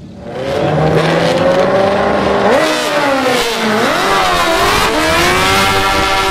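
Two drag-racing motorcycles launching off the line and accelerating hard. The engines rev up, their pitch climbing with a couple of sharp drops at gear changes, then hold a high steady note near the end.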